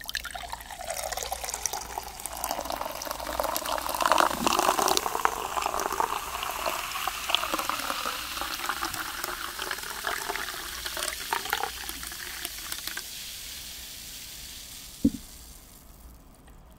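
Water poured in a long thin stream from a plastic bottle held high into a drinking glass, splashing steadily and then tapering off after about thirteen seconds. A single short knock comes near the end.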